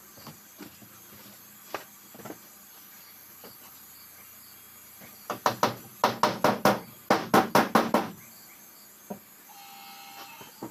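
Hammer blows on plywood wall panelling: a couple of light taps, then, about five seconds in, a quick run of some fifteen sharp strikes over about three seconds.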